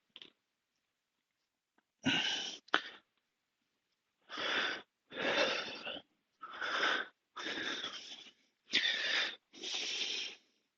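A man breathing hard and forcefully, loud noisy huffs about one a second through the second half, from the strain of a set of push-ups.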